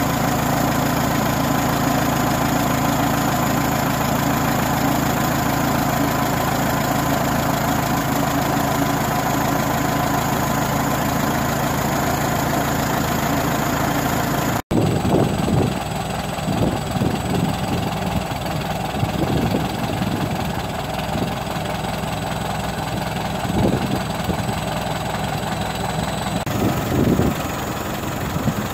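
1953 David Brown 25C tractor's engine idling steadily. About halfway through, the sound cuts abruptly to another recording of the engine running, now with uneven low buffeting over it.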